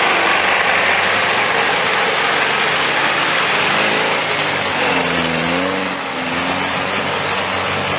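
A motor vehicle running: a steady rushing noise with an engine note that rises and falls about halfway through.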